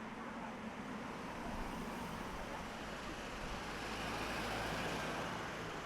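Street traffic: a road vehicle's engine hum swelling as it passes and easing off near the end, over a steady background of outdoor street noise.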